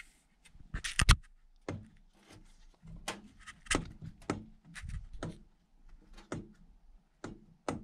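Scooter engine crankcase and small metal parts handled on a metal workbench: scattered clicks, knocks and clatter, the loudest a quick double knock about a second in.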